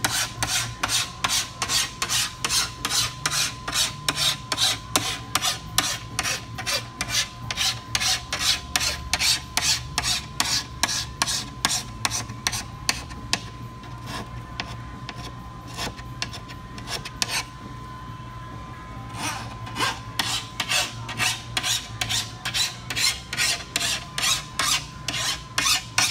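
Slim hand file rasping quickly back and forth along the top edge of a vehicle's roll-up door glass, about three strokes a second, pausing briefly about two-thirds through before starting again.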